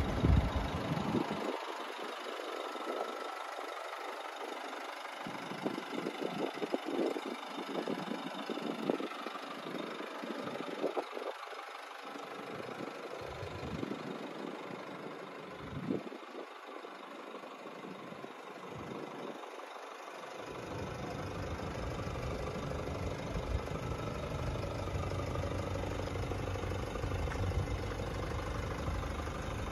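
Nissan Navara 2.3 dCi four-cylinder diesel engine idling steadily. Its low rumble comes through fuller and steadier from about two-thirds of the way in.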